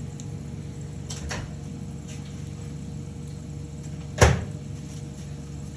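A single sharp knock about four seconds in, with fainter clicks a little after one second, over a steady low hum.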